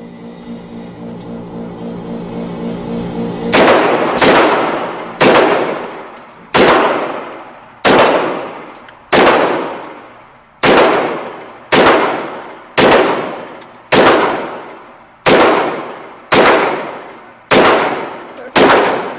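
Gunshots fired one at a time at a steady pace of roughly one a second, fourteen in all, each sharp crack followed by a long echoing decay. Before the first shot, about three and a half seconds in, there is a low pulsing hum.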